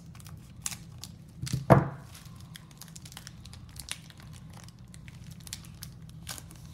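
Foil trading-card pack crinkling and tearing as it is cut with scissors and pulled open by hand, a run of small crackles and clicks, with one loud knock a little under two seconds in.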